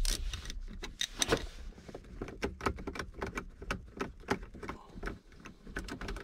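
Many quick, uneven light clicks and taps from a hand tool backing out the screws that hold a car stereo assembly in the dash. The clicks come thickest in the middle.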